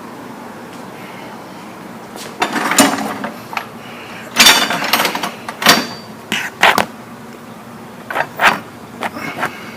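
Irregular knocks, clunks and rattles of something being handled and moved about, with about ten uneven hits starting two and a half seconds in. There is no steady run of freehub clicks.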